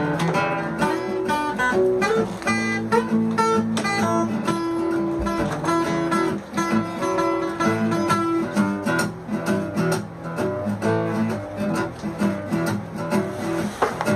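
Acoustic guitar music, a steady run of picked and strummed notes.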